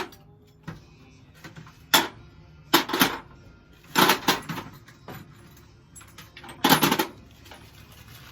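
Small metal HVAC and electrical parts clattering and clinking as they are handled and dropped together, in about six bursts, the last one near the end among the loudest.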